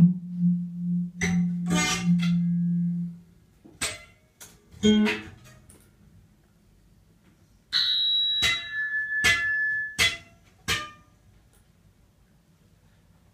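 Sparse improvised music: a zither is plucked and struck in sharp, briefly ringing attacks. Under them a low tone is held for the first three seconds, and around eight seconds a high thin tone sounds, then drops lower for about two seconds before stopping.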